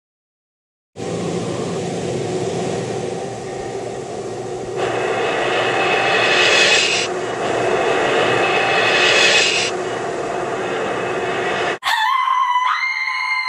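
Loud steady rushing roar, like a jet engine, starting about a second in, getting brighter twice in the middle and cutting off suddenly near the end. Music with wavering, gliding tones takes over in the last moment.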